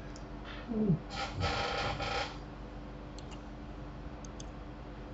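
A short falling murmur of voice, then a brief noise lasting about a second, then a few faint clicks, over a steady low hum.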